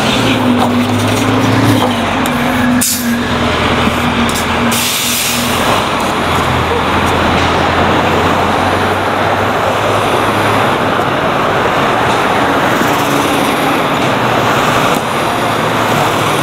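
City transit bus engine running in heavy street traffic, its steady hum fading out after about five seconds. A sharp click comes about three seconds in, and a short air hiss follows soon after.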